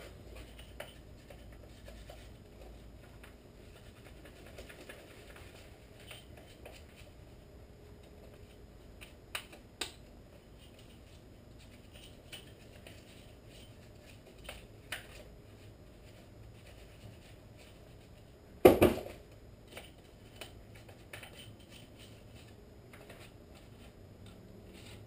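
Scattered light clicks, scratches and rattles of hands rummaging through a bag of tools and parts, with one loud knock about three-quarters of the way through.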